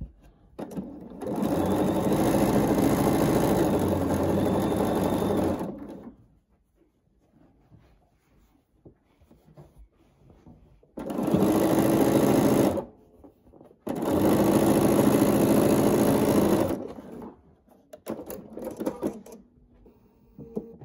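Bernina sewing machine stitching a seam in three runs: a long one of about five seconds, then two shorter ones of two to three seconds, with quiet pauses between. A few brief faint sounds follow near the end.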